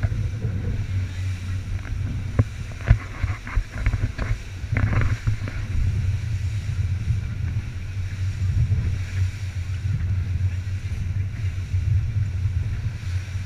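Inflatable boat under way on open sea, heard from the bow: a steady low drone of the motor mixed with wind on the microphone. Between about two and six seconds in come several sharp knocks, the hull slapping on the chop.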